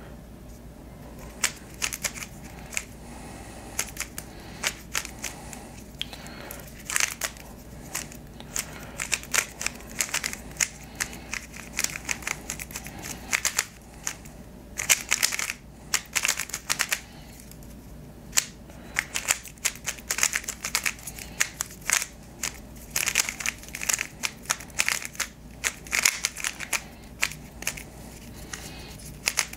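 Moyu YS3 M ball-core 3x3 speed cube turned rapidly through a timed solve: a fast, irregular run of plastic clicks and clacks as the layers snap through turns, with a brief pause about halfway.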